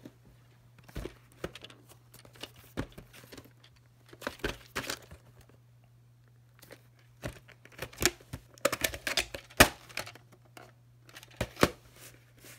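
A plastic clamshell VHS case and cassette being handled: scattered clicks, taps and rustles of plastic, with a quieter stretch a little before the middle and a busier run later, where the sharpest click falls.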